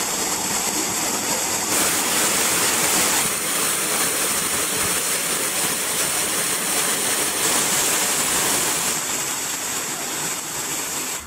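Waterfall pouring into a rocky pool: a loud, steady rush of falling water. Its tone changes abruptly a few times.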